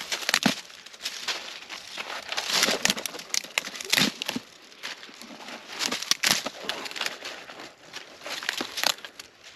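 Small dry sticks snapping and crackling one after another as they are broken up by hand for kindling, with irregular sharp cracks, the loudest about four, six and nine seconds in.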